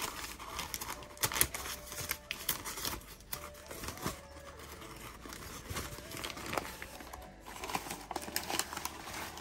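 Brown kraft packing paper and white tissue paper being crumpled and pulled apart by hand, in irregular rustling and crinkling with a sharper crackle about a second and a half in.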